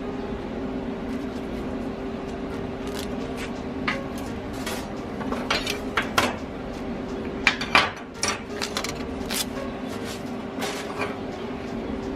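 Irregular metallic clinks, clanks and scrapes of metal parts and tools being handled on a workbench, bunched in the middle stretch, over a steady electrical hum.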